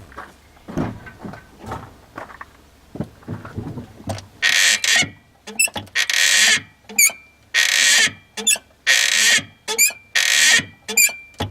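Toyota 86 clutch squeaking as the pedal is pressed and released: about four short, wavering high-pitched squeaks in the second half, between bursts of hiss, after a few faint clicks. The squeak comes from the clutch release fork pivot running dry of grease.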